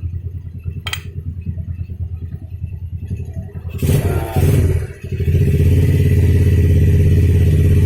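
Yamaha MX King's single-cylinder engine idling with an even pulse, with a sharp click about a second in. From about five seconds in it runs louder and steadier. The bike has a clattering from the clutch that the mechanic puts down to loose, worn clutch-housing damper rubbers.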